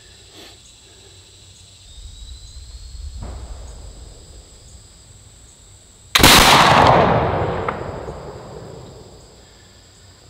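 A .62 caliber flintlock smoothbore trade gun firing once, loaded with 65 grains of Goex 2F black powder behind a patched round ball: a single loud shot about six seconds in that echoes and dies away over roughly three seconds.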